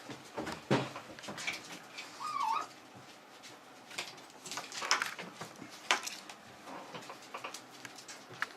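Pets at play: clicks and scratching scuffles, with one short, wavering squeal about two seconds in.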